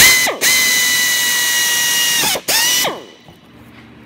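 Handheld power drill boring a hole through a plastic air box cover: a loud steady whine with a hiss, run in three goes (a short burst, a longer run of about two seconds, then a brief one), the pitch falling each time the trigger is let off.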